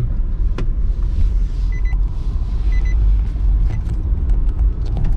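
Steady low rumble of road and engine noise inside a moving car's cabin, with a few faint clicks and two short faint high beeps about a second apart near the middle.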